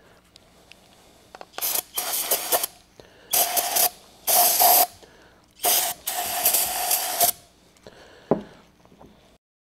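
Aerosol brake cleaner sprayed in repeated hissing bursts, the longest over a second, into the oily housing of an air impact wrench to degrease it. A single knock follows near the end.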